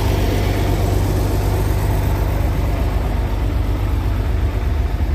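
Heavy vehicle's diesel engine idling steadily, a deep unbroken drone.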